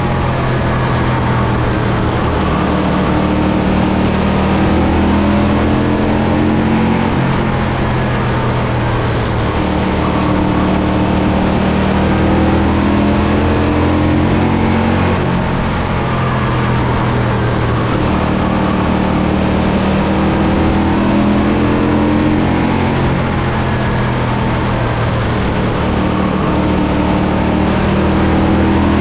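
Race car engine running hard at speed. Its pitch dips and climbs every few seconds, as with lifting off and getting back on the throttle.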